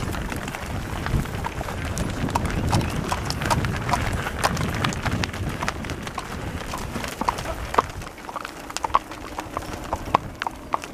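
Horse hooves clip-clopping on an asphalt highway, mixed with the hooves of a herd of cattle crossing the road. In the second half the clops thin out into sharper, separate clicks.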